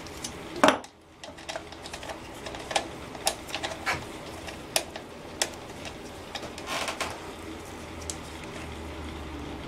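Plastic clicks and taps from the air filter housing cover on a small Briggs & Stratton engine as it is unclipped and pried off. One sharp, loud click comes under a second in, followed by scattered lighter clicks and a short scraping cluster.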